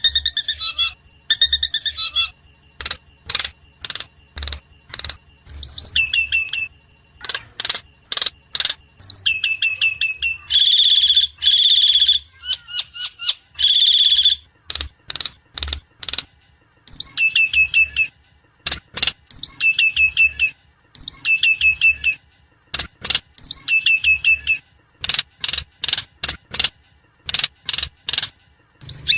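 Javan myna (jalak kebo) calling: a long run of short, sharp, high notes repeated a few times a second, broken by several longer, harsh screeching calls near the middle.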